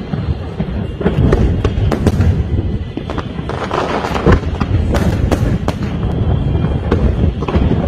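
Aerial fireworks shells bursting in rapid succession: a dense run of bangs and crackles over a continuous low rumble, with the loudest bang about four seconds in.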